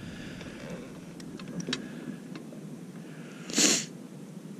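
A steady low hum with a few faint ticks in the first half. About three and a half seconds in there is one short, loud rustling burst, like handling noise against the microphone.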